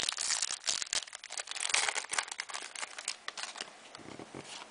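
A trading-card pack wrapper being torn open and crinkled by hand: dense crackling for the first three seconds or so, then quieter handling as the cards come out.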